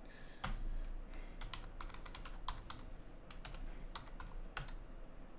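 Computer keyboard typing: irregular key clicks as a search term is keyed in, with a couple of louder taps about half a second in and near the end.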